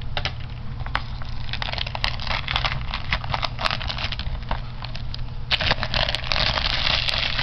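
Plastic shrink wrap being peeled and pulled off a DVD case, a crinkling crackle full of small clicks that grows louder and denser about five and a half seconds in.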